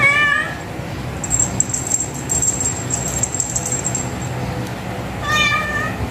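Grey tabby cat meowing twice: a short meow at the start and another about five seconds in.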